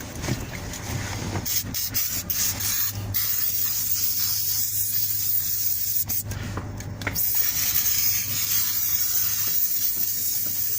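Aerosol can of silicone lubricant spraying in long hisses onto an old timing belt, with a few short breaks.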